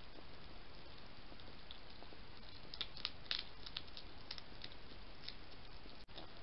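A European hedgehog crunching dry pellet food from a bowl: a run of small, crisp crunches and clicks through the middle, over a steady hiss.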